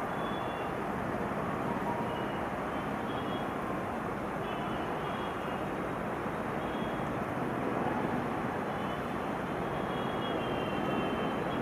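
Train running past: a steady rumble of wheels on track, with faint short high-pitched squeals now and then.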